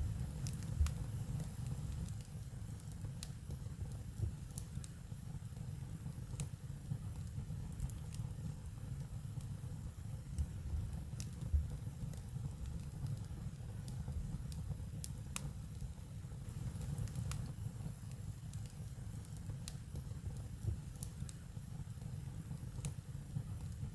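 Wood fire crackling, with sparse sharp pops scattered throughout over a steady low rumble.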